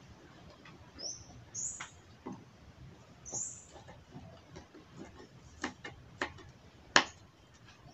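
Kitchen knife knocking on a wooden chopping board while cutting vegetables, a few separate sharp knocks, the loudest about seven seconds in. A bird gives short high chirps three times in the first half.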